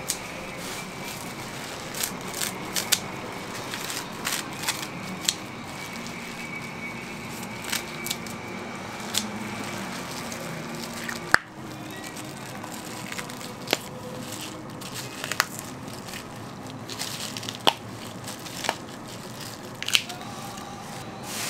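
Scattered sharp clinks and knocks of utensils and dishes at a street-food stall, over a steady background of stall and market noise.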